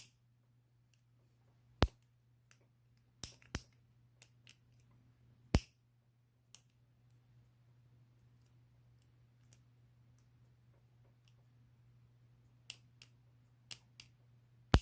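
Lock pick clicking and tapping inside the keyway of a vintage Yale five-pin tumbler padlock as it is worked past the warding and against the pins: a dozen or so sharp, irregular clicks over a faint steady low hum.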